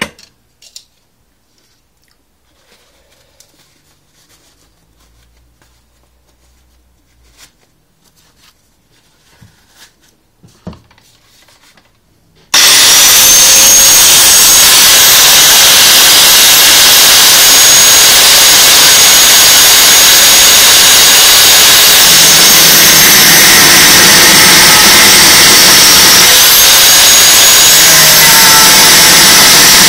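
Faint clicks and handling noise, then about twelve seconds in an electric angle grinder starts suddenly and runs continuously and very loudly, grinding into a metal exhaust baffle. Its high whine dips once near the end and recovers.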